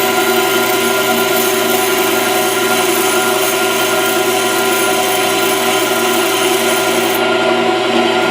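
Pedestal grinder running with a high-speed steel lathe tool bit held against the stone: a steady grinding hiss over the motor's hum. About seven seconds in the hiss stops as the bit comes off the wheel, and the motor keeps running.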